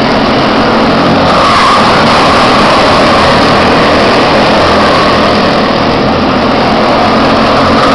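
A pack of quarter midget race cars running laps together. Their small engines make a steady, loud buzz, with the pitch wavering up and down as the cars go around.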